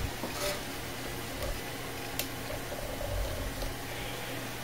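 Dell Optiplex 390 desktop running through its power-on self-test with the side panel off: a steady hum of its cooling fans, with a few faint clicks.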